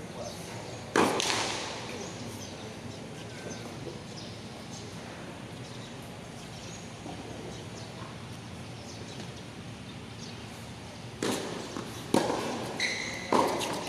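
Tennis ball being struck and bouncing on a hard court: one loud echoing impact about a second in, then three more sharp impacts about a second apart near the end, with a brief high squeak among them.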